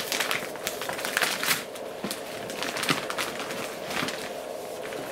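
Padded mailer envelope crinkling and rustling in irregular bursts as a boxed video light is pulled out of it.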